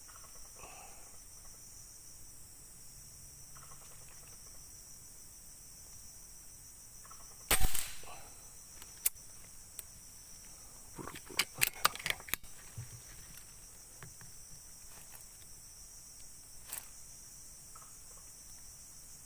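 A single air rifle shot about seven and a half seconds in, then a short run of sharp clicks a few seconds later, over the steady high drone of insects in the plantation.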